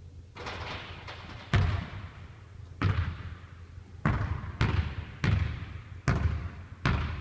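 A basketball bouncing on a hardwood gym floor, each bounce a sharp thud with an echo off the hall. About seven bounces, spaced out at first and then quickening into steady dribbling about every two-thirds of a second.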